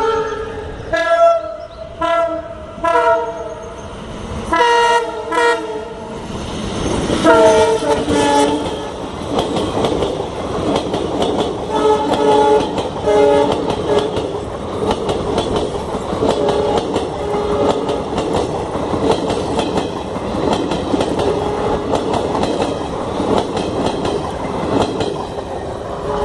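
WDM-3B diesel locomotive sounding its three-tone horn in a rapid series of short blasts as it approaches, the loudest about seven seconds in. The passenger train then runs past close by with a steady rolling rumble and wheels clattering over the rail joints, while the horn keeps sounding at intervals.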